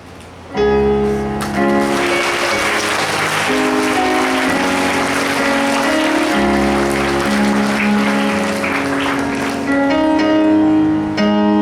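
An audience applauding over background keyboard music playing slow, sustained chords. The clapping dies away near the end while the music goes on.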